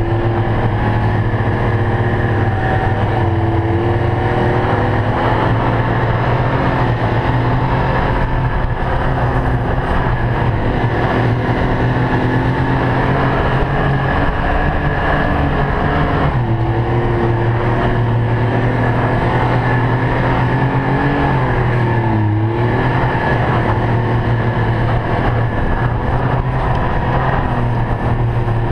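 Ski-Doo Expedition 1200 4-TEC LE snowmobile's 1200 cc four-stroke three-cylinder engine running steadily under way. The engine note dips briefly and comes back up about three quarters of the way through.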